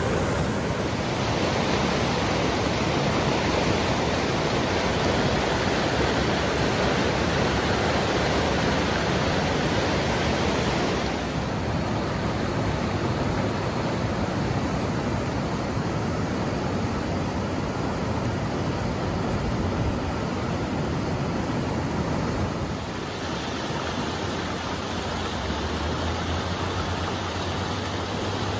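River rapids: fast water pouring over rocks in a steady rushing whitewater sound, growing a little quieter twice along the way.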